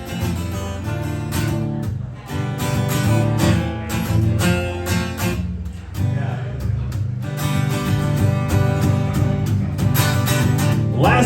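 Acoustic guitar strummed in a steady rhythm during an instrumental break in a live song, with singing starting again at the very end.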